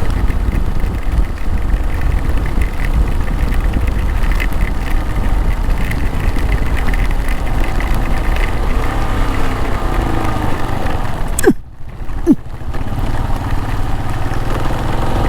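Motorcycle engine running while riding in heavy rain, with wind and rain noise on the camera. About eleven and a half seconds in, the sound drops out briefly, with two sharp clicks.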